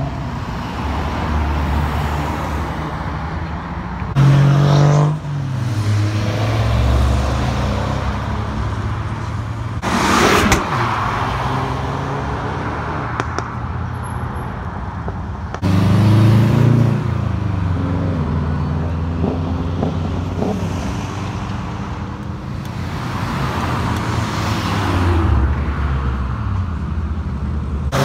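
Cars driving past one after another, engines revved as they accelerate away. The loudest passes come about four seconds in, around sixteen seconds and at the very end, with a short sharp burst of noise near ten seconds.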